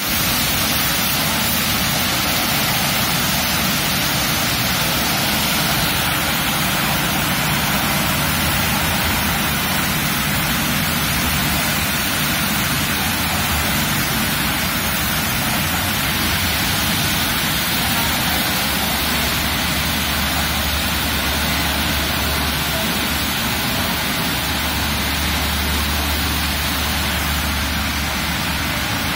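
Automatic rollover car wash spraying water jets over an SUV, a loud, steady hiss of spray. A low machine hum from the wash gantry runs underneath and grows stronger in the last ten seconds.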